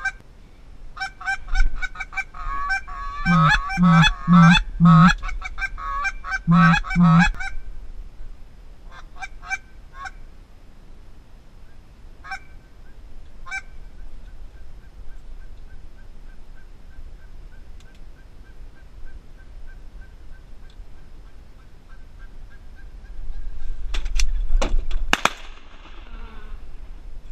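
Geese honking: a dense, fast run of honks over the first several seconds, then scattered single honks that thin out. Near the end come a few sharp bangs close together.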